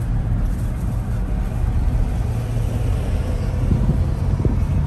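Steady low rumble of a moving car's road and engine noise, heard from inside the car's cabin.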